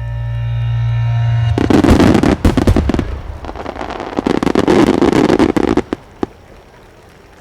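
A swelling held music chord cuts off about a second and a half in as a dense volley of aerial firework shells bursts and crackles for about four seconds. One last pop comes after it.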